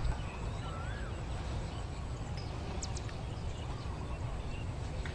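Outdoor background noise: a steady low rumble, with a few faint high chirps.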